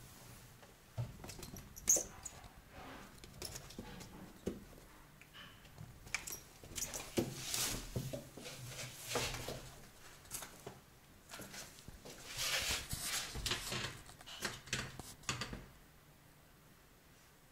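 A cat's paws patting and scrabbling at a wall and carpet as it leaps at a hand's shadow: irregular soft taps and scuffs, with louder bursts of rustling.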